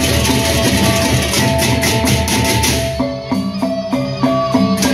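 Sasak gendang beleq gamelan playing: large double-headed barrel drums with clashing cymbals and small gongs. About three seconds in the cymbals thin out, leaving a quick run of gong notes, before the full ensemble crashes back in at the end.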